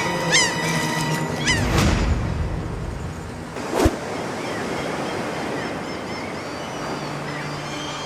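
Gulls calling in repeated harsh cries for about the first two seconds. Then a swell of surf comes in, with a sharp whoosh about four seconds in, and steady ocean wash carries on with faint distant gull calls over it.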